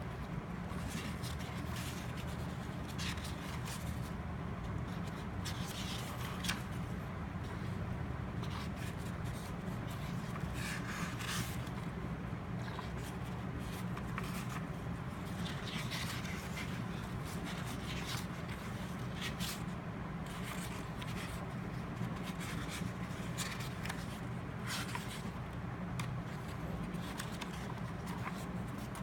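Paper being handled: short, irregular rustles and scrapes over a steady low hum.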